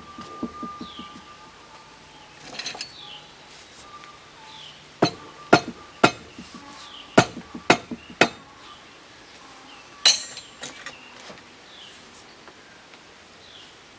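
Sharp metal knocks and clinks from tools working on a cast-iron drill press: a quick run of about seven strikes from about five to eight seconds in, then a louder rattling clatter about ten seconds in.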